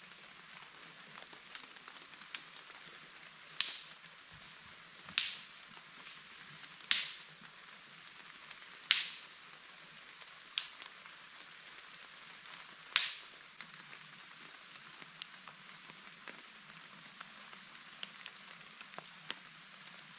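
Light rain falling steadily through forest leaves, an even soft hiss. Six sharp, loud taps land a second or two apart from about four to thirteen seconds in, with fainter ticks before and after.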